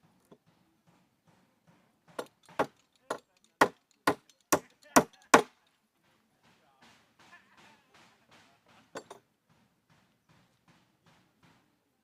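A quick run of about eight sharp strikes on wood, about two a second, getting louder toward the end. They are followed by a few seconds of lighter, evenly spaced knocks.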